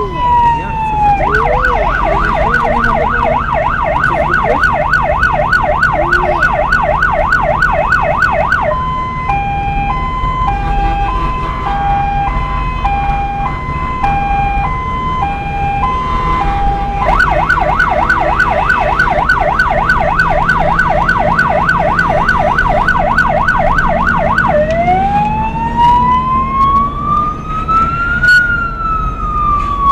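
Emergency-vehicle siren cycling through its tones: a falling wail, then a fast yelp of about three sweeps a second, then a two-tone hi-lo alternating between two pitches, the yelp again, and near the end a slow wail that rises and falls. A vehicle engine runs steadily underneath.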